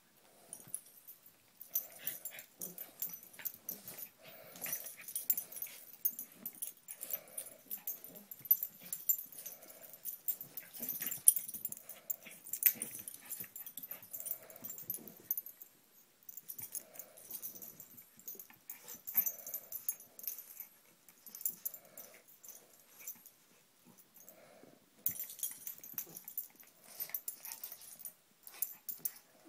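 Two papillons play-fighting, with growls and huffs in irregular bouts and the scuffle and rustle of paws and bodies on fleece blankets. There are brief lulls about two-thirds of the way through.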